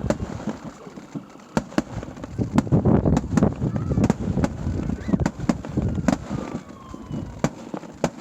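Fireworks bursting: a string of sharp, irregular bangs, with a dense rumbling crackle of overlapping reports thickening in the middle.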